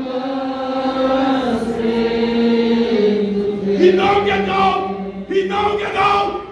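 A group of voices singing a slow worship song together, holding long sustained notes.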